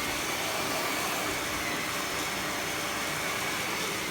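Vacuum cleaner running steadily: a constant motor and airflow noise with a thin steady high whine in it.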